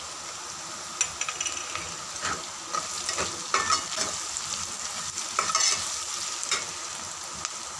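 Chopped onions and green chillies sizzling in hot oil in a frying pan while a metal spatula stirs them, scraping the pan in irregular strokes.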